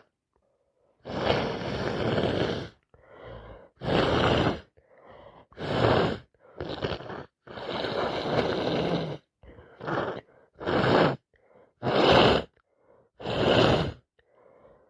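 A woman with a heavy cold blowing her congested nose and sniffing in a run of about a dozen noisy bursts with short gaps between. Two are longer blows, lasting a second or two each.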